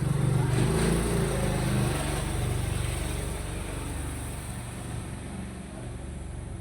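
A motor vehicle passes close by, its engine hum loudest in the first two seconds and then slowly fading away.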